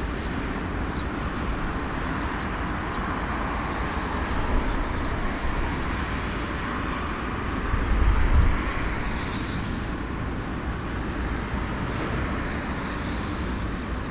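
Jet engines of a taxiing four-engine airliner, a steady hiss over a low rumble. The rumble swells briefly about eight seconds in.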